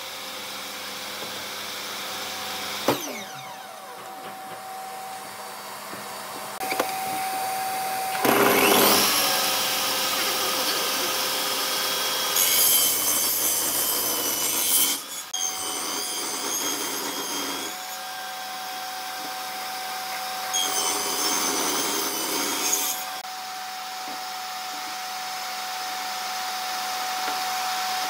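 Bosch table saw running with a steady motor whine, its blade cutting repeated kerfs into the end of a hardwood post. The cuts come as louder hissing stretches, around eight, thirteen and twenty-one seconds in. The pitch falls away about three seconds in and climbs again around eight seconds.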